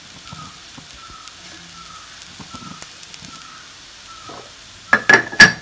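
Onions and green chillies sizzling faintly in a cast iron kadai, then a wooden spatula knocking sharply against the pan three or four times near the end.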